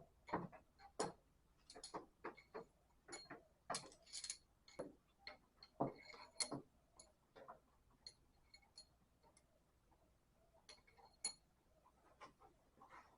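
Steel pushrods being dropped one at a time into the lifters of a Holden Torana UC engine: faint, irregular metallic clicks and taps with a light ring.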